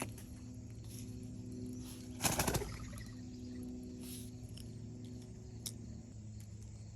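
A brief fluttering rustle a little over two seconds in, with a faint click later, over a steady low hum.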